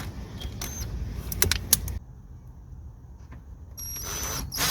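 Several sharp metallic clicks and clinks in the first two seconds, from a ratchet and the T30 Torx bolts of a car's underbody tray as they are taken out, then quieter handling noise.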